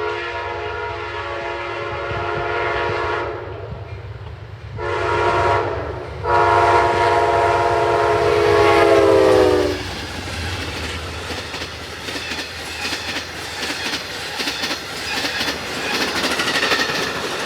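Amtrak locomotive's multi-chime air horn, which sounds like a Nathan K5LA, blowing a long blast, a short one and another long one. The pitch drops at the end of the last blast as the locomotive passes. After that the passing train's wheels rumble and clack over the rail joints.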